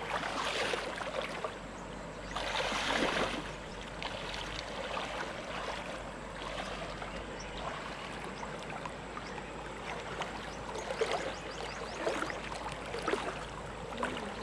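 Water splashing and sloshing as someone wades through a shallow, rocky river, over the steady flow of the stream. Louder surges of splashing come at the start, around three seconds in and again near the end.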